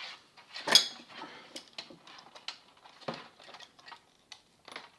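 Sharp clicks and metallic clinks of hand tools working on the metal chassis and parts of a cassette deck being taken apart: a handful of single snaps, the loudest about a second in.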